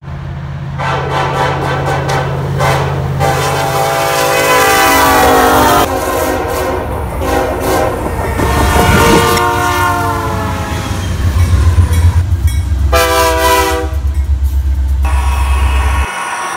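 Diesel freight locomotive air horns blowing several long blasts and a short one over the steady low rumble of the locomotives. Around eight to ten seconds in, one horn's pitch drops as it passes. The rumble cuts off suddenly near the end.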